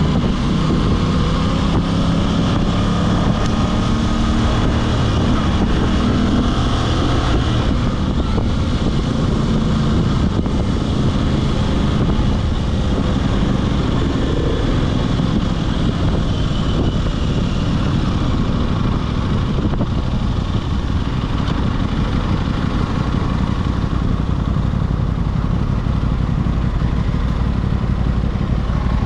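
Aprilia RS 660's parallel-twin engine and exhaust under way, the engine note rising and falling through the first several seconds, then settling into a steadier drone.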